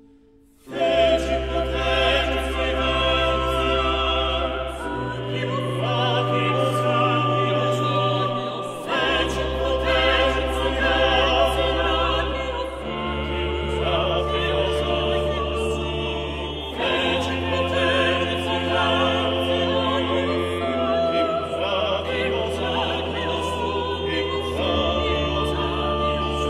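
Background music: classical choral singing with orchestra, held chords over long bass notes. It starts suddenly about half a second in, after a near-silent gap.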